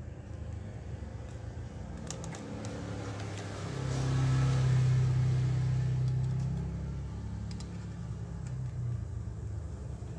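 A steady low motor hum swells louder about four seconds in and fades again by seven seconds. A few faint clicks come from a phone's plastic midframe and speaker module being handled.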